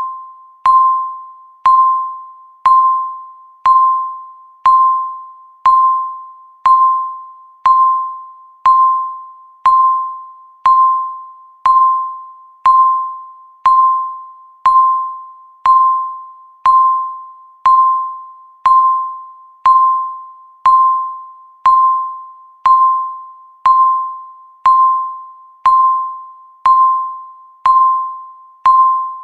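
Countdown timer beeping once a second: each beep is a single mid-pitched electronic tone that starts sharply and fades away before the next one.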